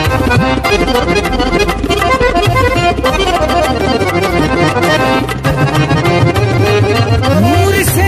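Instrumental interlude of a devotional Urdu naat song: a sustained reed-like melody over a steady drum beat, with no singing.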